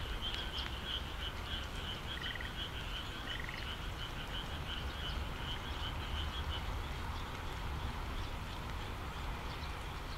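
A frog in a flooded rice paddy calling in a fast run of repeated croaks that stops about two-thirds of the way through, with a second, shorter call twice early on. A steady hiss of rain runs underneath.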